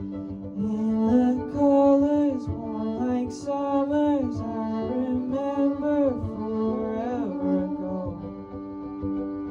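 Background music: a slow song with a singing voice over sustained accompaniment.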